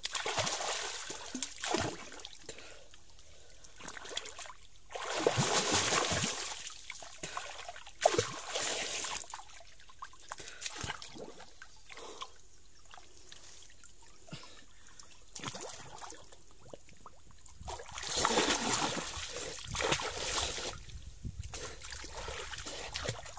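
River water splashing and sloshing as a person wades chest-deep and sweeps a long-handled hand net through it. It comes in a few bursts, strongest about five seconds in and again near the end, with quieter trickling and dripping between.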